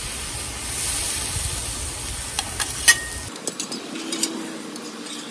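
Brussels sprouts sizzling on a hot steel griddle top while metal spatulas scrape across the steel and scoop them up, with a few sharp metal clicks about two and a half to three seconds in and more taps after.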